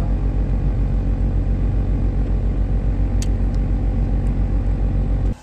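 Low, steady rumble of a car's running engine heard inside the cabin, pulsing evenly several times a second. It cuts off abruptly near the end.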